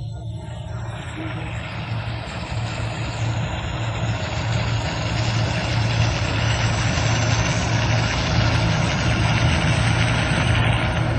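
Self-propelled corn ear harvester running, a steady low engine hum under a dense machinery clatter and rush that grows louder over the first half and then holds steady.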